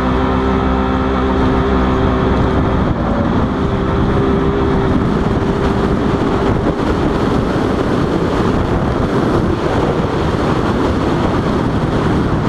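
Polaris RZR side-by-side's engine running at a steady speed while driving; from about three seconds in, rushing wind on the vehicle-mounted microphone largely covers the engine's tone.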